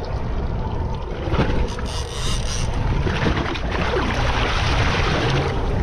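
Wind buffeting the microphone over a choppy sea, with water washing alongside the boat; the noise grows louder in the second half.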